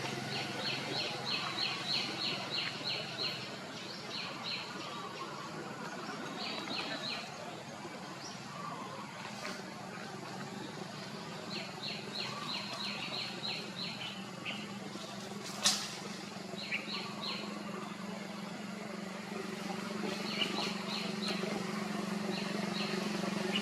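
A bird calling in quick runs of high chirps, several notes to a run, repeated in bursts, over a low steady hum. A single sharp click about two-thirds of the way through.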